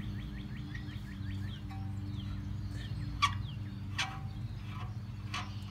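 Three sharp metallic clinks of hand tools against metal in an engine bay, the loudest about three seconds in, over a steady low hum. A rapid run of short, high chirps fills the first two seconds.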